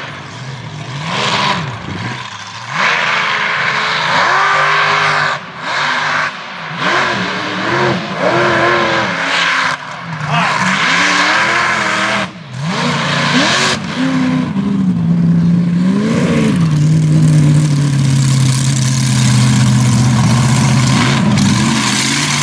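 Mega truck's engine revving hard, its pitch rising and falling repeatedly as the throttle is worked. Later it settles into a steady, high-revving run.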